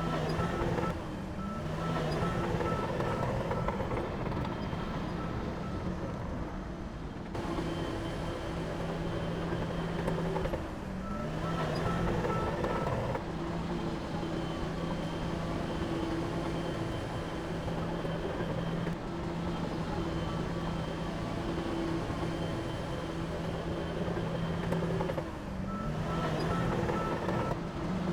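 Heavy diesel earthmoving machine running steadily, with a reversing alarm beeping in three short spells: at the start, about halfway through and near the end.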